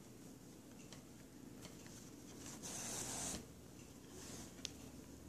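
Brown yarn being pulled through a stuffed knitted doll head while embroidering an eye: faint handling rustles, one brief swish of the yarn about three seconds in, and a single small click near the end.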